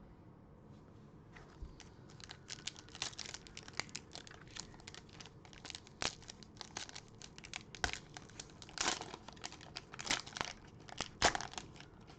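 Plastic cellophane wrapper of a cello pack of trading cards crinkling and tearing as it is ripped open and handled, a run of irregular sharp crackles.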